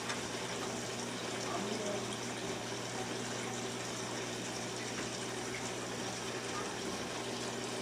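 Aquarium filter and pump running: a steady trickle of water with a constant low electrical hum.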